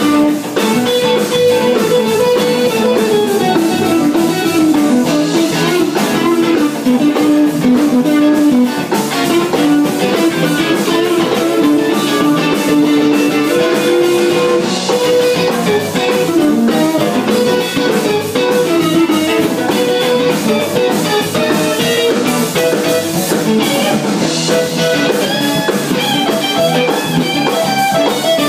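Live band jam: guitar playing a melodic line over a steady groove, with drum kit keeping time.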